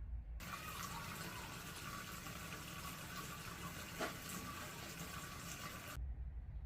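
Water running steadily, as from a tap, starting suddenly about half a second in and cutting off sharply near the end, with a single click about four seconds in.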